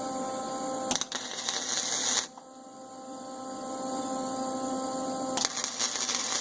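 Two bursts of electric arc-welding crackle, the first about a second and a half long and the second about a second, as a washer is tack-welded onto a steel tractor lift arm. A steady electrical hum runs underneath.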